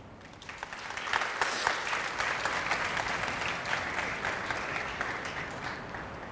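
Audience applauding, starting about half a second in and tapering off near the end.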